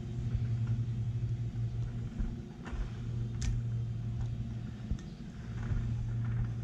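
A steady low hum, dipping briefly a few times, with a few faint light clicks as the carburetor bank is handled.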